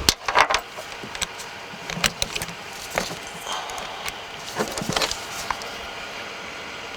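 Scattered small clicks and taps of tools and plastic interior trim being handled, as a cover is fitted and its screw put in.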